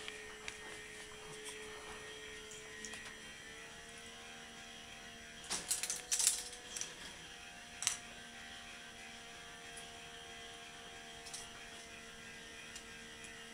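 K'NEX ball machine running: a steady motor hum with light plastic ticks from the moving parts. About five and a half seconds in comes a burst of clattering as plastic balls knock along the plastic track, and a single sharp clack follows about two seconds later.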